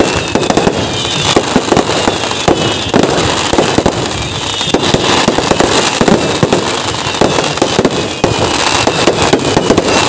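Festival fireworks display (Kerala vedikkettu) going off in a dense, unbroken run of rapid bangs and crackling pops.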